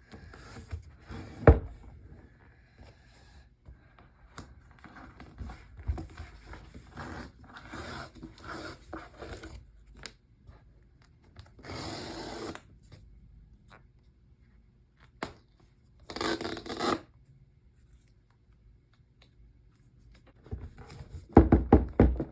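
Hands unboxing a new iPad Pro box: cardboard and plastic wrap rubbing and scraping, with a sharp knock about a second and a half in. Around the middle come two louder tearing noises, each about a second long.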